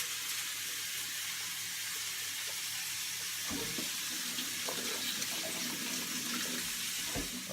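A steady, even hiss with no pitch to it, with a few faint knocks and clicks from about halfway through.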